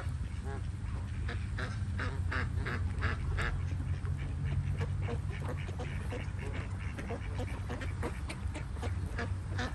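A flock of Canada geese and mallards calling: many short honks and quacks, overlapping several times a second, over a steady low rumble.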